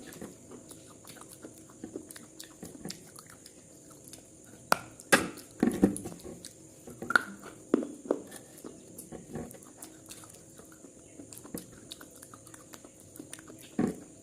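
Scattered small clicks, taps and knocks, with a cluster of louder knocks in the middle, over a faint steady hiss.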